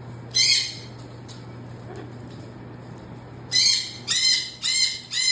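Pet cockatoo calling: one short call, then four quick calls in a row near the end.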